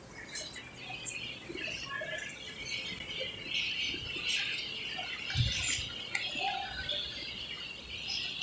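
Busy, scratchy background noise with rustling and rubbing from a handheld phone being moved about, and a dull thump about five and a half seconds in.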